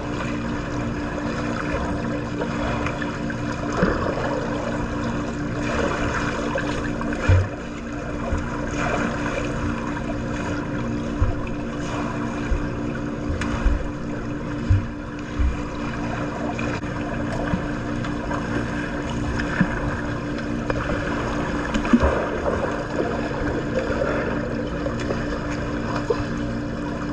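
Swimming-pool water sloshing and splashing from a swimmer's strokes, over a steady low hum, with scattered dull thumps.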